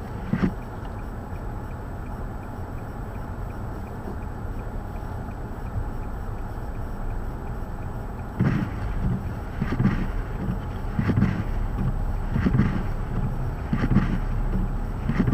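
Wind of a snowstorm rumbling steadily on the microphone. From about halfway, a regular short thud comes roughly every second and a half.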